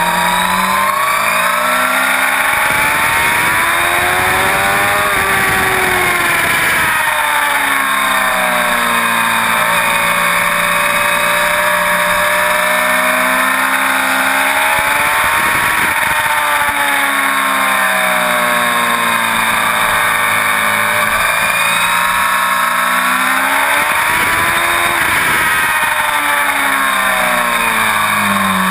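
Inline-four sportbike engine heard from on board, its note rising and falling again and again as the rider accelerates and backs off through the bends, under a steady rush of wind.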